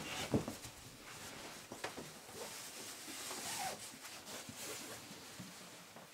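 Faint clicks and light rustling: one sharp click a third of a second in, then scattered softer taps.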